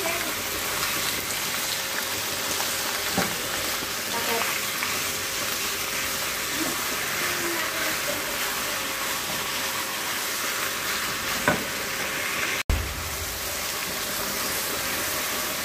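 Chicken skin sizzling as it fries in a nonstick pan, being stirred with a wooden spatula to render out its fat, with a couple of knocks of the spatula against the pan. The sound cuts out for an instant near the end.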